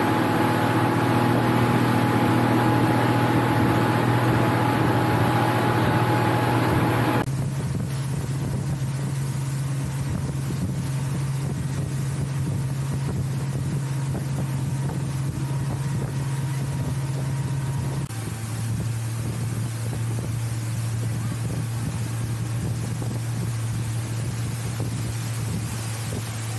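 Motorboat engine running steadily, a low hum with some wind on the microphone. The engine note and overall sound change abruptly about seven seconds in and again around eighteen seconds.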